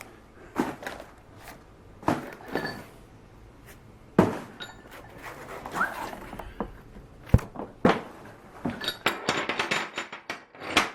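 Heavy steel engine head bolts knocking and clinking against each other as they are handled and set down. Separate knocks come a second or two apart, with a quick rattle of small clicks near the end.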